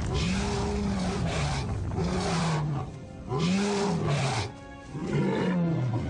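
Four roaring calls from a large animal, each about a second long, rising and then falling in pitch, with short pauses between them.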